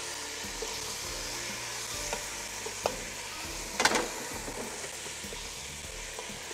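Chicken pieces frying in oil in a granite-coated pot, sizzling steadily, while a wooden spatula stirs them and knocks against the pot a few times, most sharply just before four seconds in.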